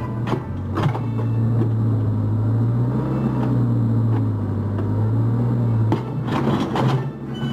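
Cat 304 mini excavator's diesel engine running steadily under load, its drone wavering slightly in pitch, with a few sharp knocks and clatter near the end.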